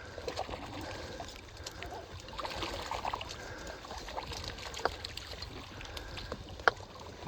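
Water trickling and dripping as a wet fishing net is pulled in and picked over in a small boat, with scattered taps and knocks; a sharper knock comes near the end.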